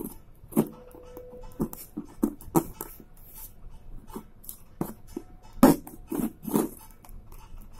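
Fingers scraping and picking at packing tape on a cardboard shipping box, making irregular scratches and crackles, the loudest a little before six seconds in.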